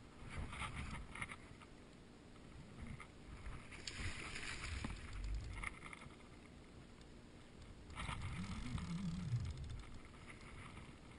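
Water sloshing and splashing around a float tube in irregular surges, mixed with handling noise from the rod and spinning reel while a big wels catfish is being fought. About eight seconds in comes the loudest surge, with a short low wavering tone in it.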